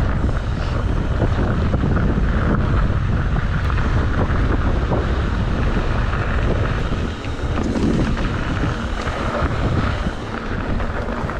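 Wind buffeting an action camera's microphone while riding a mountain bike: a loud, steady rush that starts abruptly.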